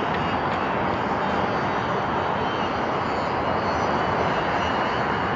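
Strong wind buffeting the camera microphone, a steady rushing noise with no let-up.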